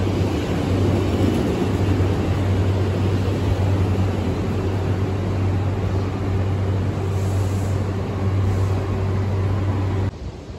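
A Narita Express electric train (JR East E259 series) pulling out of the platform: steady running noise from its wheels and motors with a strong low hum. It starts and cuts off abruptly.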